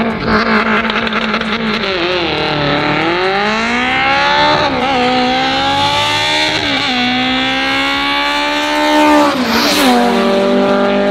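Drag-racing cars launching down the strip, a turbocharged Honda against a naturally aspirated Opel. An engine revs up through the gears: its pitch climbs, drops sharply at each of three upshifts and climbs again, then holds steady near the end.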